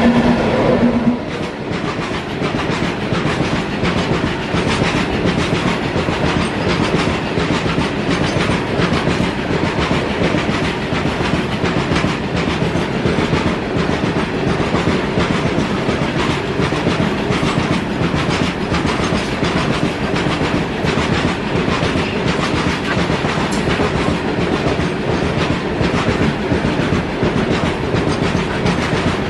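A loaded freight train of BOXN-HL open steel wagons rolling past close by at speed, with a steady dense clatter and rumble of wheels over rail joints. A low steady tone stops about a second in, just after the WAG9 electric locomotive has gone by.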